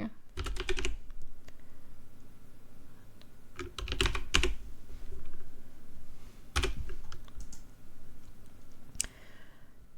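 Typing on a computer keyboard: short runs of keystroke clicks near the start, about four seconds in and near seven seconds, with pauses between and a lone click near the end.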